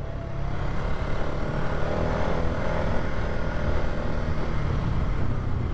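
Polaris ATV engine running steadily under way, with trail noise. It picks up in the first second, then holds an even drone.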